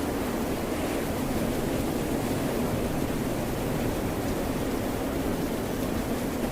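Rain and ocean surf heard together as one steady, even wash of noise, heaviest in the low range, with no separate crashes or drops standing out.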